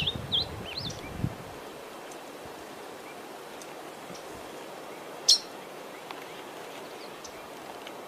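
A songbird sold as a 'tigrillo degollado' gives a few short, sliding whistled notes in the first second. Then comes a steady background hiss, with a single sharp click about five seconds in.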